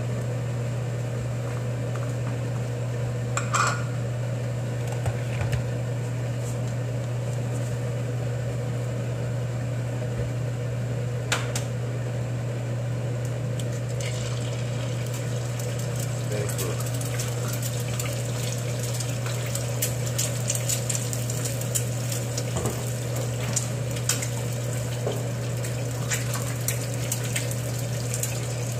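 An egg drops into a hot oiled egg pan about halfway through and starts to sizzle, a dense crackling that goes on to the end. Under it runs a steady low hum, with a few sharp knocks of utensils on pans before the egg goes in.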